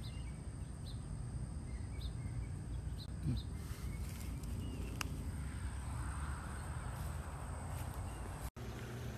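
Outdoor ambience: a low steady rumble with faint, short bird chirps, several in the first few seconds. The sound cuts out for an instant near the end.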